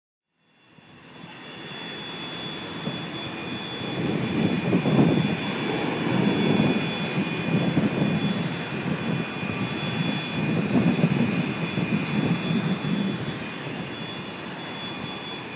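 Jet aircraft engines running: a steady high whine made of several held tones over a rumble that swells and eases. It fades in over the first couple of seconds.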